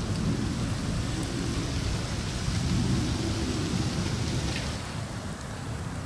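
Wind buffeting the microphone with a low rumble, and a steady hiss of wind through the trees that swells in the middle and drops away a little before the end.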